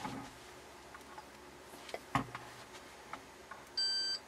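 Light clicks and knocks of handling on the bench, with one heavier thump about two seconds in. Near the end, a short steady electronic beep of about half a second from a digital multimeter as its probes go to the picture tube's base pins.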